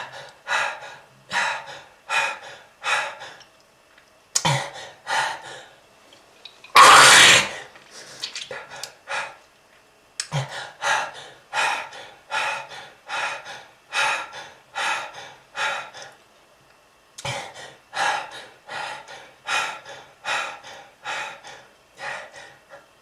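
A person coughing over and over in fits of short, harsh coughs, about two a second, with one longer, louder hacking burst about seven seconds in: a smoker's persistent cough.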